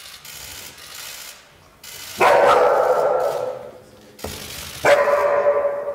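Akita Inu dog calling out twice, each call drawn out for about a second.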